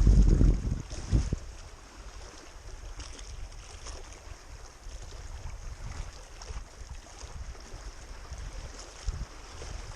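Strong wind buffeting the camera microphone: a heavy low rumble in the first second or so, then a steadier rush of wind.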